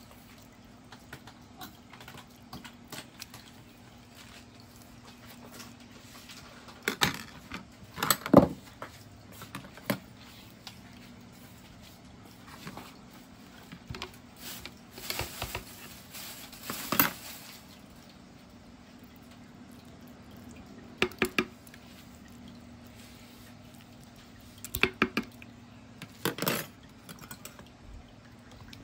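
A metal fork scraping avocado flesh from its skin, with scattered clinks and knocks of cutlery against a plate and a plastic cup, in short clusters, the loudest about eight seconds in. A faint steady hum runs underneath.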